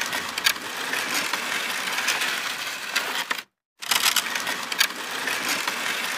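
Sound effects of an animated outro: a dense, gritty hiss dotted with sharp crackles and clicks, broken by a sudden half-second of dead silence just past the middle before the same noise starts again.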